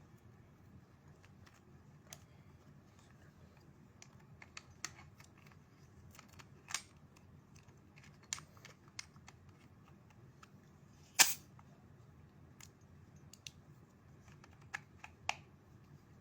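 Scattered small clicks and taps from handling an airsoft Glock 19 and its magazine while a CO2 cartridge is fitted, with one much louder sharp snap about eleven seconds in.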